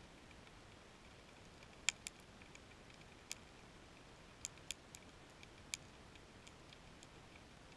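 Scattered sharp underwater snaps of snapping shrimp: half a dozen loud ones, irregularly spaced, among fainter ticks over a faint hiss.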